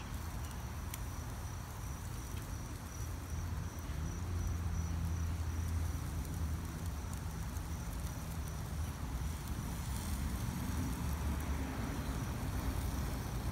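Outdoor background noise: a low rumble that grows louder from about four to ten seconds in, with a faint steady high-pitched tone over it.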